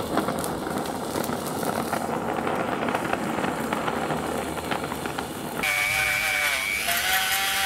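Oxy torch flame hissing with crackling as scrap brass is melted in a crucible and poured into a mould. About six seconds in it switches to the high, steady whine of a small rotary tool buffing the cast brass with a felt polishing wheel.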